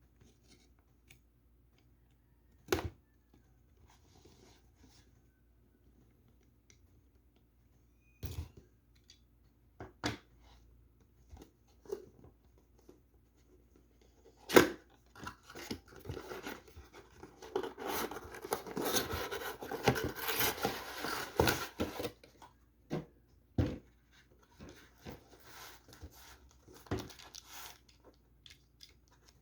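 A prize-figure box and its packaging being opened by hand. A few sharp knocks and taps come first, then several seconds of continuous tearing and rustling of packaging in the middle, then lighter scattered handling noises.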